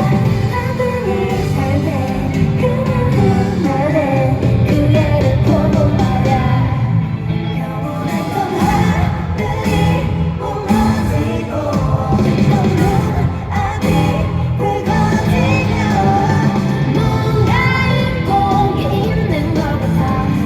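K-pop song performed live: women's voices singing over a pop backing track with a steady beat, played loud through an arena's sound system.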